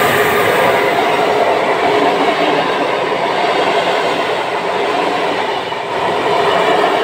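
Passenger coaches of an Intercity train hauled by an EU160 Griffin electric locomotive rolling past close by: a steady, loud rumble and rush of wheels on rails. A humming tone from the train fades out about half a second in.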